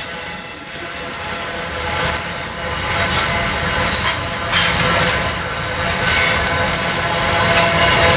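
Container wagons of an intermodal freight train rolling past, a steady rolling noise of wheels on rail with several high-pitched ringing tones held over it.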